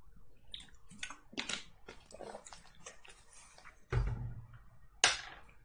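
A person drinking from a water bottle: faint gulps and small bottle clicks, then a dull thump about four seconds in and a short hiss near the end.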